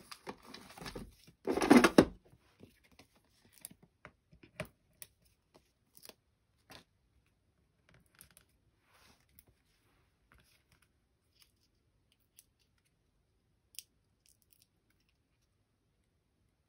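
Stampin' Up! Dimensionals foam adhesive dots being pulled off their backing sheet: a short, loud ripping sound about two seconds in. Small scattered clicks and rustles of paper being handled follow, fading to faint occasional ticks.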